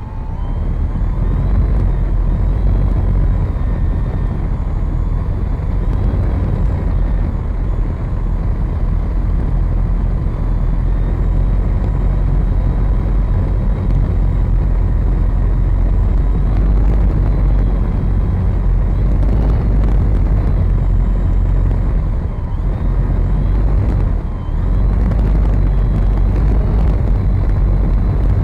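Motor and propeller of a radio-controlled model plane running at high throttle in flight, a steady whine over heavy wind rumble on the onboard camera's microphone, with a couple of brief dips in level late on.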